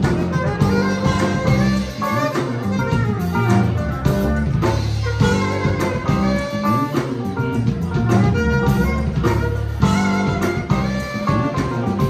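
Small live R&B band playing a steady groove: keyboard, electric bass guitar and drum kit, with a saxophone.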